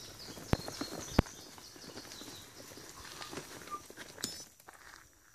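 Footsteps and knocks from a handheld camera being carried and swung, with rustling, several sharp thuds in the first second or so, and short high chirps over the top. It fades out near the end.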